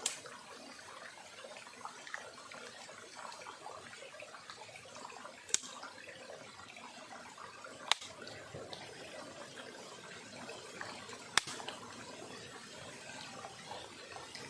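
Small stream running and trickling steadily, broken by four sharp pops spread a few seconds apart.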